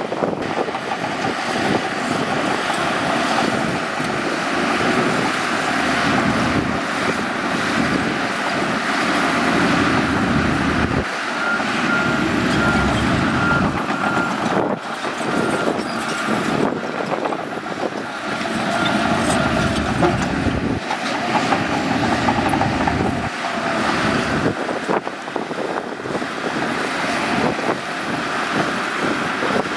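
Shantui bulldozer working, its diesel engine running under load with the clatter of its tracks. A reversing alarm beeps steadily for several seconds in the middle.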